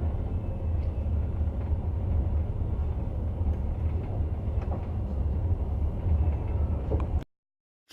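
Passenger train running with a steady low rumble and a few faint clicks. It cuts off suddenly a little after seven seconds.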